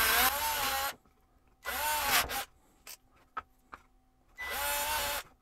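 AEG cordless drill boring through plywood with a 4 mm bit in three short bursts: one running to about a second in, one around two seconds in, and one near the end. The motor whine rises in pitch as each burst spins up. A few light clicks come between the second and third bursts.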